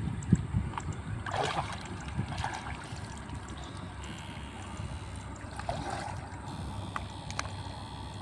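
Water sloshing and splashing in a few short swishes, over a low rumbling noise.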